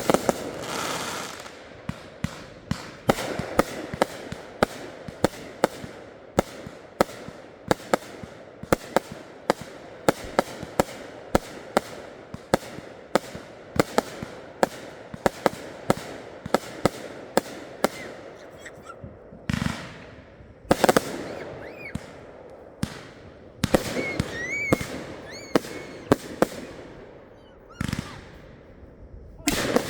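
Consumer fireworks going off: a fast, irregular string of sharp bangs for most of the first twenty seconds, then separate bursts with short pauses between them.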